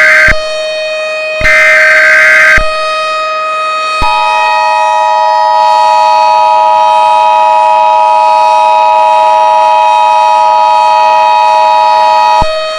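Emergency Alert System tones from a mock EAS broadcast: two short screeching digital header bursts, then from about four seconds in the steady two-tone attention signal held for about eight seconds. A constant steady tone runs underneath.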